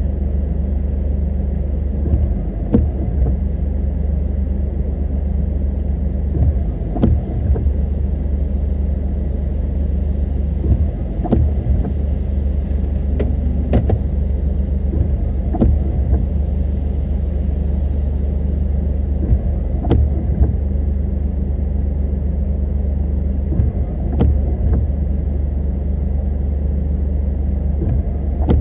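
Steady low rumble of a car driving, heard from inside the vehicle, with a short sharp tick about every four seconds.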